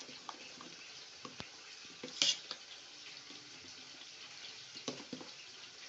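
Steady sizzling hiss of ingredients frying in a pan, with a few sharp clicks of a stirring utensil, the loudest about two seconds in.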